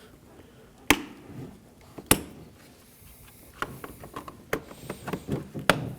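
Sharp plastic clicks as electrical connectors are plugged into a car's inner door panel: two loud clicks about one and two seconds in and another near the end, with lighter rattling and ticking of handled plastic in between.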